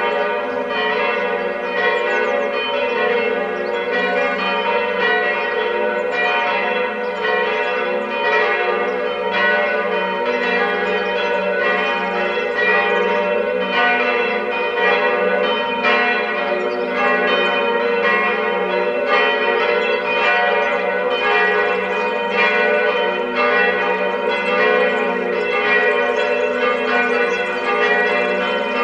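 Several church bells ringing together in a continuous peal, one strike following another so quickly that their tones overlap and ring on.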